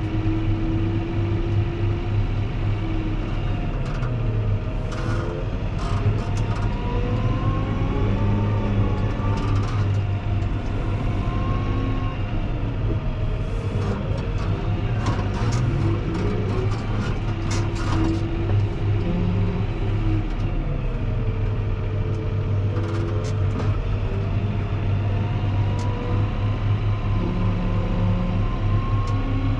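Fendt 724 Vario tractor's six-cylinder diesel running steadily under load as it pushes a front snow plow. A low drone carries a whine that drifts up and down in pitch, with short clicks and scrapes now and then.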